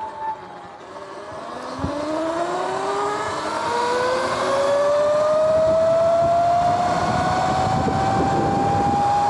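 Sur-Ron electric dirt bike, converted from belt to chain primary drive, pulling away and accelerating: its motor and drivetrain whine rises steadily in pitch, with wind noise building as speed grows.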